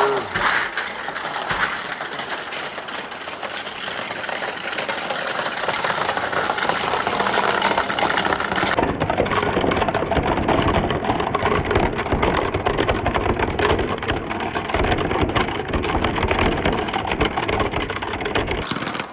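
Hundreds of glass marbles rolling and clattering along a marble run in a dense, continuous rattle, growing fuller and heavier about nine seconds in.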